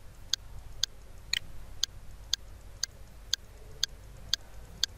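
Steady clicking, evenly spaced at about two clicks a second.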